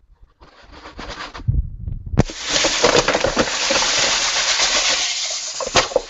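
Brewing grains poured into a stainless brewing kettle of warm water for the mash: a steady rushing hiss of grain starts suddenly about two seconds in and eases off near the end.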